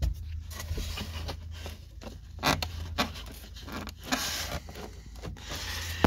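Hands rubbing and scraping against plastic dash panels and a wire harness, with scattered clicks and knocks, over a steady low hum.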